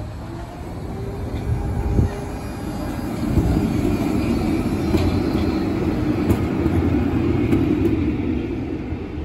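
A green-and-yellow articulated city tram passing close by: a steady rumble of steel wheels on the rails that grows louder and is loudest for several seconds in the middle. There is a single knock about two seconds in.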